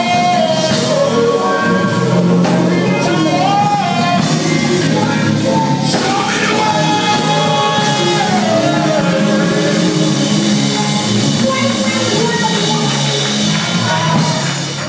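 Live church band with drum kit and keyboard playing loud, upbeat music with a voice singing over it, dropping off near the end.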